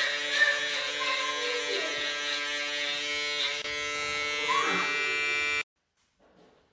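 BroStyle professional cordless beard trimmer running with a steady electric buzz as it cuts beard hair. The buzz cuts off suddenly about five and a half seconds in.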